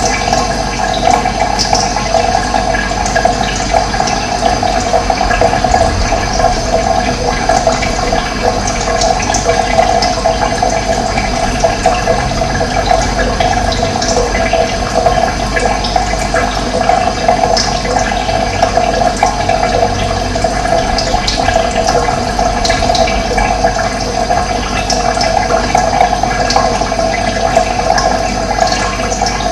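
Running water flowing steadily, a constant rushing with its weight in the middle range.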